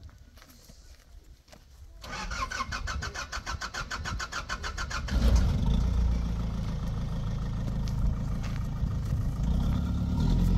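A vehicle engine is cranked by its starter motor with a fast, even chatter for about three seconds. It catches about five seconds in and settles into a steady idle.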